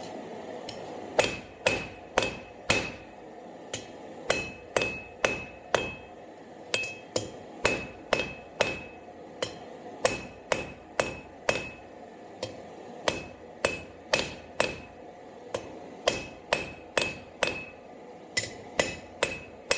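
Hand hammer striking a hot square steel bar on an anvil to forge a taper. Sharp metal blows come about two a second in runs of three to five, with short pauses between the runs, and most blows carry a brief ring.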